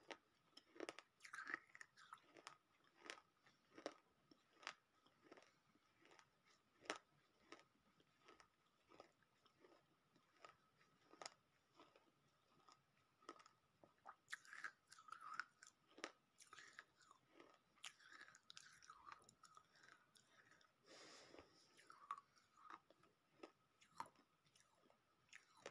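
Close-miked chewing of brittle baked clay (broken white slate pencils and roasted multani mitti), with sharp crunches about one or two a second and a quieter grinding between bites.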